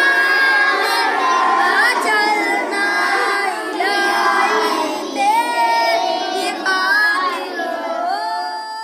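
Children singing a hamad, an Urdu devotional song in praise of God, ending on a long held note near the end.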